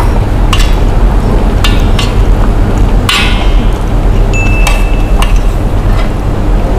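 Metal spoon clinking and scraping against a plate of rice: a handful of separate sharp clicks, one with a brief ringing tone, over a steady low rumble.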